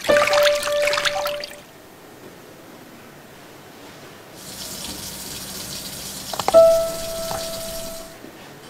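Water from a tap splashing over a forearm for about a second and a half, with a clear ringing tone held over it. Later comes a high shimmering hiss, and a ringing ding about six and a half seconds in, which is the loudest moment.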